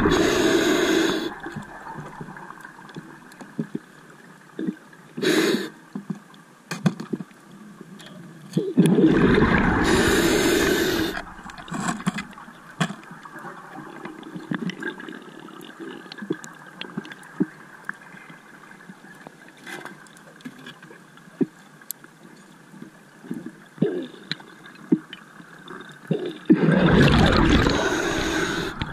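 Scuba diver's exhaled bubbles rushing out of the regulator past the camera in long bursts about every 10 to 15 seconds, with a brief one in between. Faint clicks and a low hiss fill the gaps between breaths.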